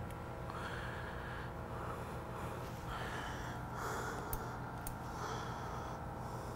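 A person breathing audibly through the nose, a soft breath roughly every second to second and a half, over a steady low hum. Two faint clicks come a little past halfway as hands work at the brake lever.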